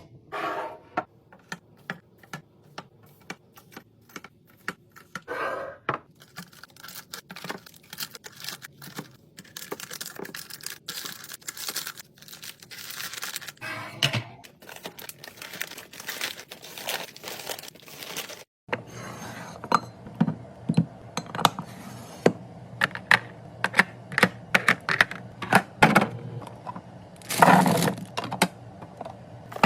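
Many sharp clicks and taps of containers and packaging being handled while a fridge is restocked, with crinkling and tearing of wrappers. A cut about 18 seconds in brings a steadier low background under more clicks.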